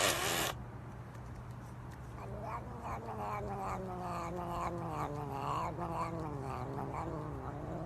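A short burst of noise, then a domestic cat caterwauling: one long drawn-out yowl that wavers and slowly falls in pitch, over a steady low hum.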